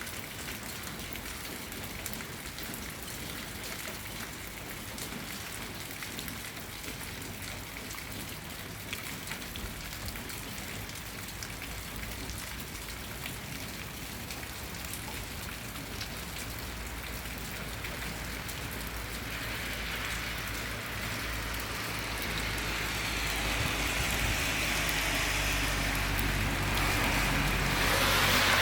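Steady rain falling, with many fine drop clicks over a continuous hiss; it grows louder over the last third. A low hum sits underneath from about a third of the way in.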